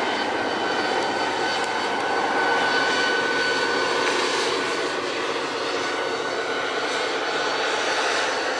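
Approaching diesel locomotive running with a steady high whine over a broad engine noise.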